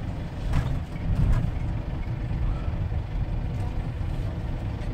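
Steady low engine and road rumble heard from inside a moving vehicle driving in traffic, with two brief knocks about half a second and just over a second in.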